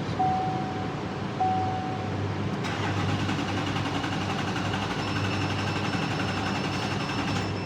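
A chime sounds briefly at the start, then about three seconds in the 2016 Chevrolet Duramax 6.6 L diesel is cranked by its starter, turning over steadily with a whine, in a pickup with a crank-no-start fault.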